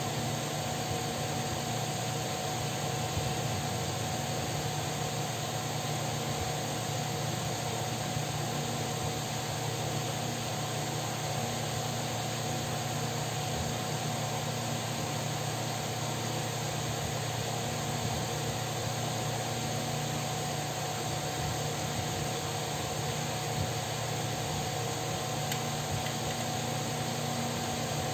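Electric fan running with a steady hum and whir, with a thin constant tone over it.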